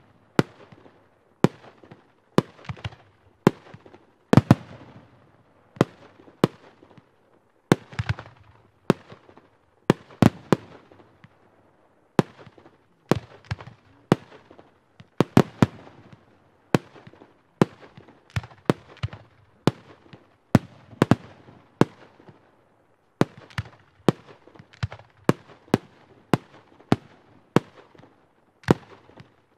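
Professional F3/F4 display fireworks firing: an uneven, continuous run of sharp bangs, about one to two a second and varying in loudness, each trailing off in an echo.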